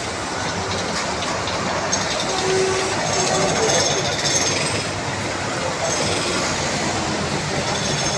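Steady noise of rain and traffic on a wet street, with auto-rickshaw engines running.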